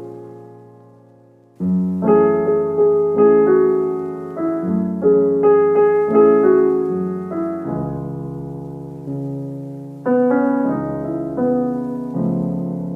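Background music: soft electric piano playing slow chords and short melodic runs, with no drums.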